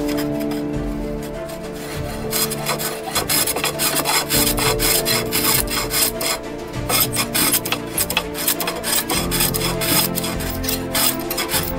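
Stanley 110 block plane cutting the end grain of a wooden block in quick repeated push strokes, each a short rasping scrape, starting about two seconds in. Background music with sustained tones plays underneath.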